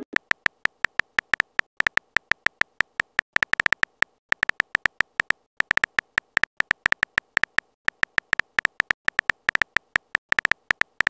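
Phone keyboard typing sound effect: quick, short clicks with a slight high ring, several a second in bursts with brief pauses, as a text message is typed letter by letter.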